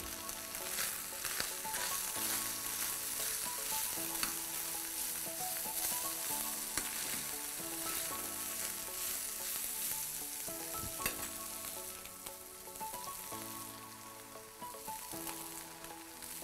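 Beef fillet and sliced mushrooms sizzling in an oiled frying pan as they are stirred, with a single sharp knock about eleven seconds in.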